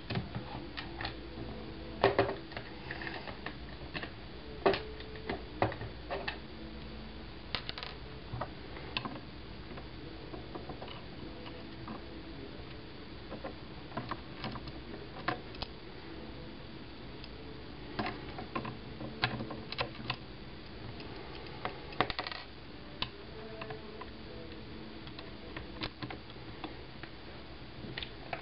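Small screws and an accessory rail being handled and fitted onto a rifle's handguard: scattered, irregular small clicks and taps as the rail is set in place and its screws are started, with a few sharper knocks about 2 and 5 seconds in and again near 22 seconds.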